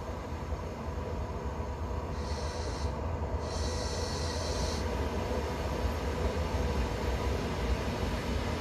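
EN57 electric multiple unit approaching on the track: a steady low rumble that grows slowly louder as it comes closer. Two short high-pitched sounds break in, one about two seconds in and a slightly longer one about three and a half seconds in.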